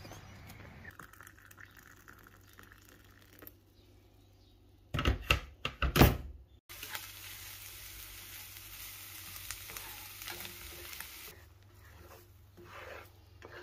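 Chopped mushrooms, onion and capsicum sizzling in a hot non-stick frying pan while being stirred with a spatula, an even hiss that stops suddenly after about four and a half seconds. Just before it come a few sharp, loud knocks.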